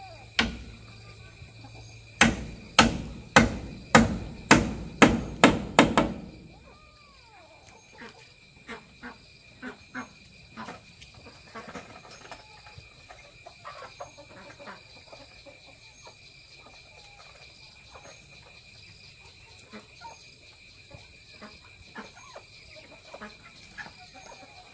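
Hammer driving a nail into a wooden railing post: a quick run of about eight sharp strikes, about two a second, between two and six seconds in. After that, only light scattered taps and knocks.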